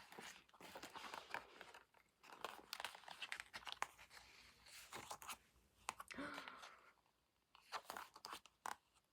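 Faint rustling and crinkling of paper and plastic as an album's photo book and inclusions are handled, with many small scattered clicks and crackles.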